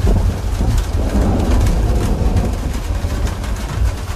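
Thunder rumbling low over steady heavy rain, with raindrops pattering on a roof; the rumble eases off near the end.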